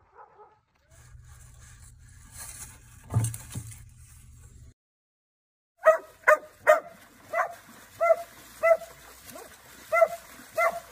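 A dog yipping over and over in short, high-pitched calls, about two a second, starting about six seconds in after a low hum and a single thump.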